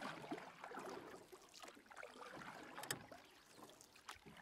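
Faint sounds of a canoe on the water: irregular water lapping and splashing with a few light knocks, one sharper click about three seconds in.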